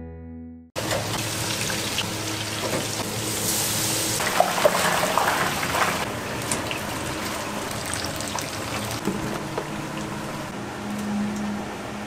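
Water running or splashing steadily, with a few sharp clicks and a faint low hum beneath.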